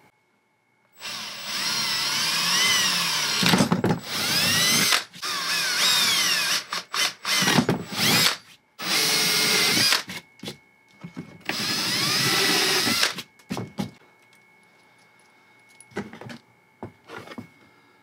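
Power drill boring holes through the lid of an ammunition case, in several runs of one to two seconds with short trigger blips between them. The motor whine rises and falls in pitch as the trigger is squeezed and eased, with a few faint clicks near the end.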